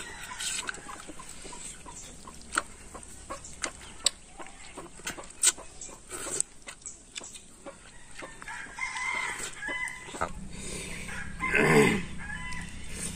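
Chickens clucking, with one louder squawk near the end, over scattered sharp clicks and smacks of people chewing fried chicken legs.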